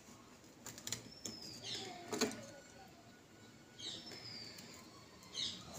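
A kitchen knife scraping and clicking as it cuts through the hardened dough seal around a clay handi's lid, with a sharp knock about two seconds in. Birds chirp in the background, with a short falling whistle repeated a few times.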